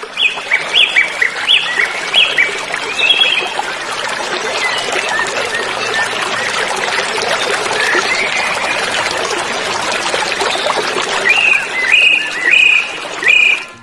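Steady splashing and trickling of shallow water stirred by catfish wriggling at the bank. A bird calls in a quick series of short chirps at the start and again near the end.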